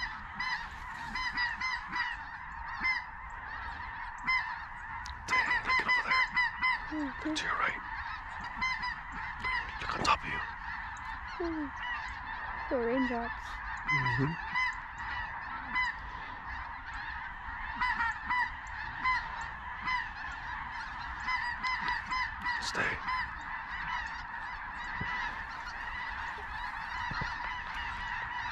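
A large flock of geese calling high overhead: many overlapping honks and yelps run on without a break, with a few lower calls mixed in.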